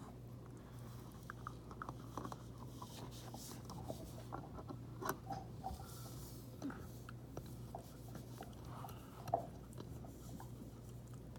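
Jack Russell terrier gnawing on a chew: faint, irregular clicks and crunches of teeth on the chew, with one sharper click about nine seconds in, over a steady low hum.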